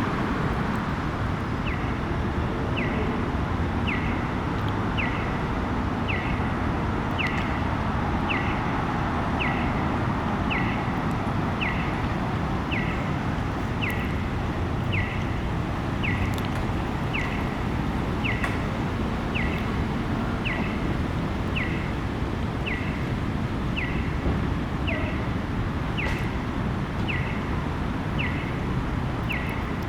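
Accessible pedestrian crosswalk signal chirping: short electronic chirps, each falling in pitch, repeating about once a second. Steady traffic noise runs underneath.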